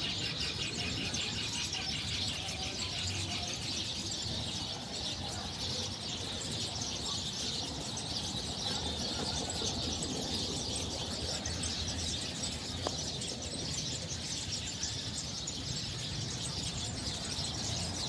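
A large flock of small birds chattering and chirping together in a tree where they gather to roost, a dense unbroken chorus of many high overlapping notes, busiest in the first couple of seconds.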